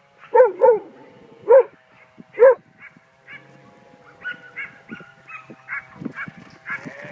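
Australian cattle dog barking: four loud barks in the first couple of seconds, the first two close together, then fainter, higher sounds.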